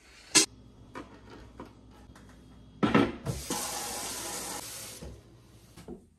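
Water from a kitchen faucet runs into a white plastic bucket in a stainless sink for under two seconds, then stops abruptly. Before it come clunks of plastic buckets being handled and set down, and a sharp click near the start.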